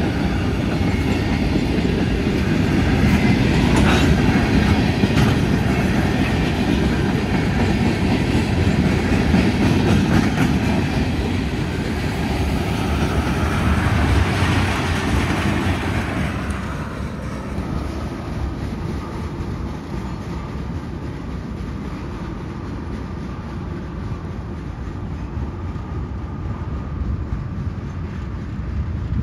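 Freight train cars (autoracks, a gondola and tank cars) rolling past at close range, with steady wheel-on-rail noise. About two-thirds of the way in it drops to a quieter, more distant running sound as the cars move away.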